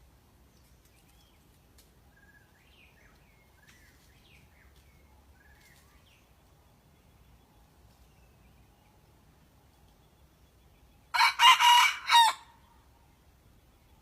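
A decoy rooster of red junglefowl type crowing once, a short, clipped crow of about a second in several broken parts, a little before the end. Earlier, small birds chirp faintly a few times.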